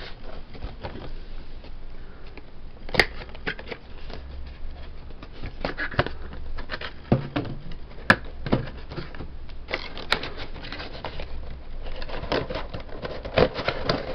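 A cardboard action-figure box and its plastic blister tray being handled and slid apart: rustling and scraping with scattered sharp clicks and taps, the sharpest about three, eight and ten seconds in.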